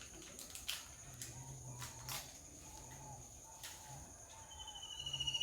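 A steady high-pitched insect drone, like a cricket, with a few sharp clicks, and near the end a bird's clear whistle gliding down in pitch.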